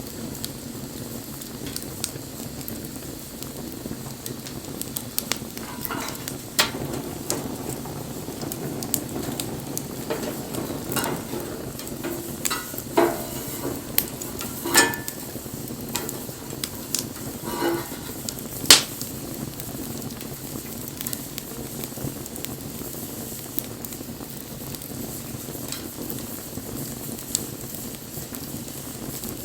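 Wood campfire burning with a steady hiss and scattered crackles and pops, busiest in the middle, with one loud pop near the end, and a few short squeaky hisses among them.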